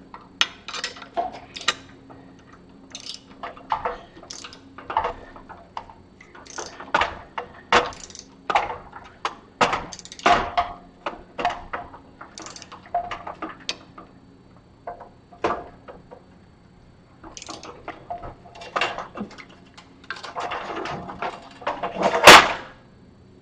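Hand tools and steel parts clinking, tapping and scraping on a steel machine-skate assembly in irregular short knocks, with one loud metal clank near the end.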